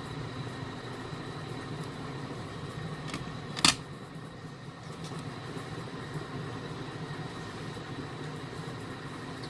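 Steady fan-like room hum, with one sharp click about three and a half seconds in.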